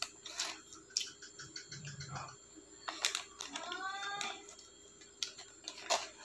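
A paper fries bag crinkling as fries are picked out and eaten, with sharp clicks and mouth sounds.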